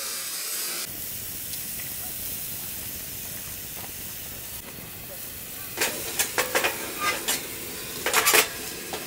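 Steak sizzling on a hot gas-fired stainless-steel grill: a steady frying hiss. Near the end comes a run of sharp pops and clicks, the loudest about eight seconds in.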